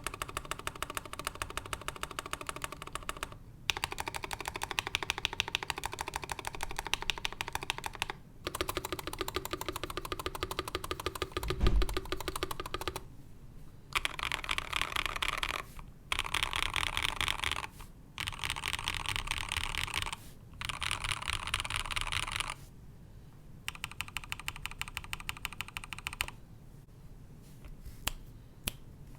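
Mechanical keyboard typed on in fast runs of keystrokes with short pauses between them: a stock Next Time 75 with an aluminium plate, lubed and filmed Tecsee Ice Candy switches and PBT keycaps. One louder, deeper thump comes about twelve seconds in, and the keystrokes thin out near the end.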